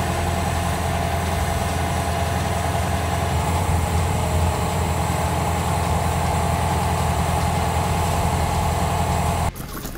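Heavy eight-wheeled missile-launcher truck's engine idling steadily, a low hum with a steady higher whine over it; it stops abruptly near the end.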